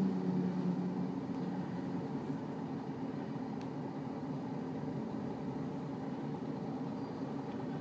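Steady running noise inside a JR Hokkaido KiHa 54 diesel railcar moving slowly: a low engine and wheel rumble, with a brief low hum in the first second.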